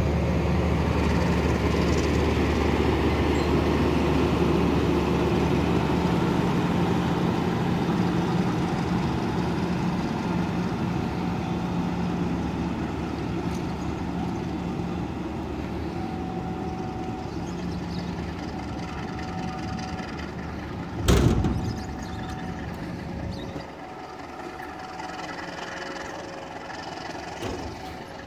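Diesel-hauled passenger train moving away along the track, its engine hum and running noise fading steadily. A single sharp thump about 21 seconds in is the loudest moment.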